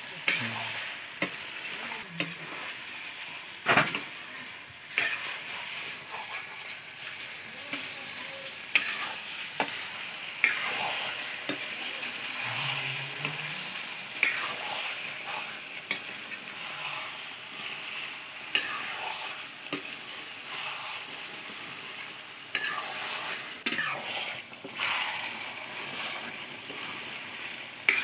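Potato curry sizzling in a metal wok, stirred with a metal spatula that scrapes and knocks against the pan every second or so over a steady frying hiss.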